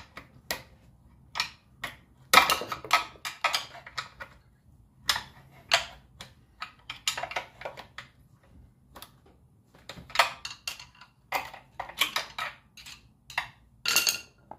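A hand tool clicking and scraping against the plastic governor gear and its shaft inside an open Predator 212 crankcase as the gear is pried off: irregular clicks and short metallic scrapes, several a second.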